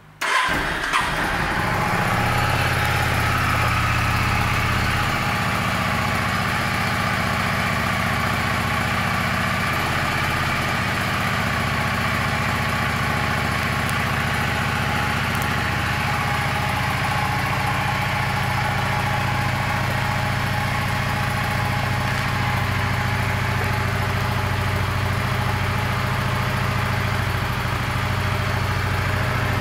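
2007 Yamaha V Star 650 Classic's air-cooled 649 cc V-twin on its stock exhaust, starting up within the first second and then idling steadily. The idle drops slightly about five seconds in.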